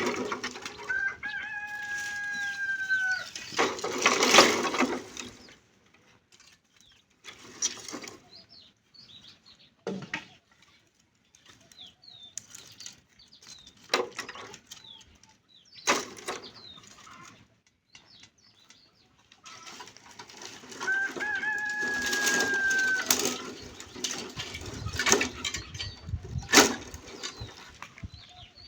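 A rooster crowing twice, each time one long held call, the first near the start and the second about twenty seconds later. In between come scattered short rustles and knocks and faint high chirps.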